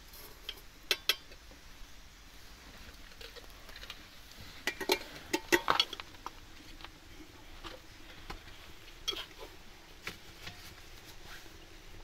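Light metallic clinks and knocks of a small metal teapot, its lid and a kettle being handled: a few strikes about a second in, a quicker cluster of sharper clinks about halfway through, then scattered single taps.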